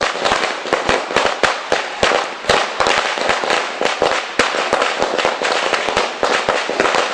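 Firecrackers going off in a long, irregular string of sharp bangs, several a second.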